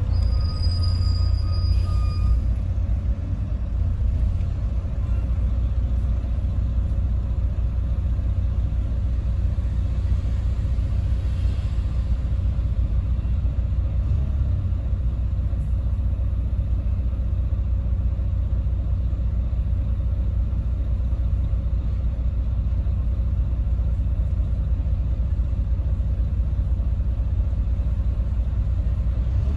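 Double-decker bus engine idling while the bus waits at a red light, a steady low rumble heard from the upper deck. A brief, thin high-pitched squeal sounds in the first two seconds as the bus settles to a stop.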